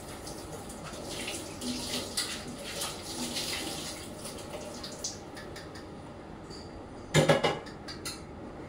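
Mutton curry being stirred in a metal pan, the wet gravy sloshing and scraping irregularly for a few seconds. About seven seconds in there is one loud metallic clank, followed by a couple of small clicks.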